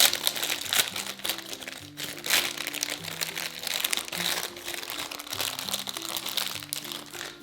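Plastic packaging of a Pez candy dispenser and candies crinkling and crackling as it is handled and opened, with many short crackles throughout. An upbeat background tune plays underneath.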